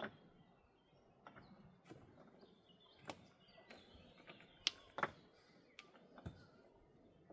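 Scattered sharp clicks and knocks of stones knocking against each other as they are handled and set on a dry stone wall, the loudest pair about five seconds in.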